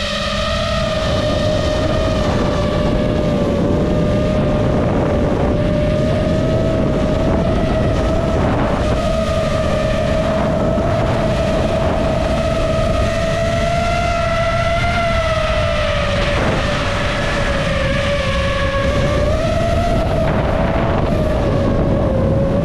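The brushless motors and propellers of an iFlight Nazgul5 five-inch FPV quadcopter whine steadily, the pitch drifting up and down as the throttle changes. Strong gusty wind rumbles across the microphone underneath.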